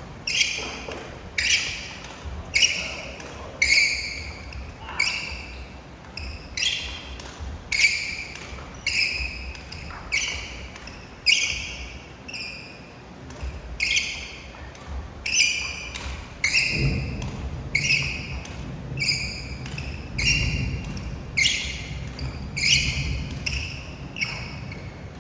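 Badminton racket strings hitting shuttlecocks in a fast push knock drill: a sharp crack about every three-quarters of a second, each ringing briefly in the hall. Low thudding runs underneath in the second half.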